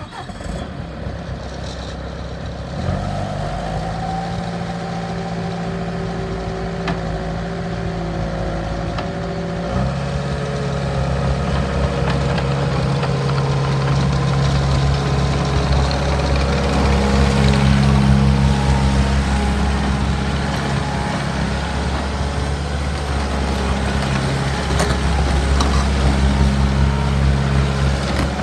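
Bobcat T300 skid steer loader's diesel engine running steadily, its engine speed changing about three seconds in and again about ten seconds in.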